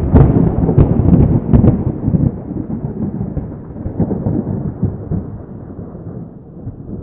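Loud thunderclap sound effect: a few sharp cracks in the first two seconds, then a long low rumble that slowly dies away.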